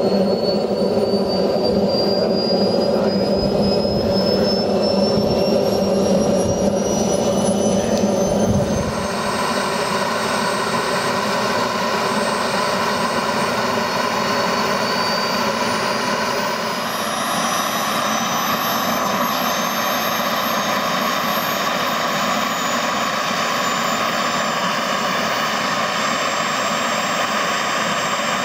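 Model jet's gas turbine starting up: a rumble with a high whine rising in pitch, changing about nine seconds in to a steadier running whine that climbs slowly again later.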